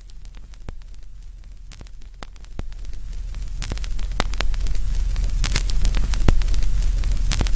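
Old-record surface noise: scattered crackles and pops over a low hum and hiss, growing louder and denser about halfway through.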